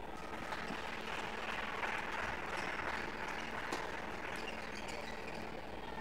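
Audience applauding, a dense patter of handclaps that swells in the first couple of seconds and thins out toward the end.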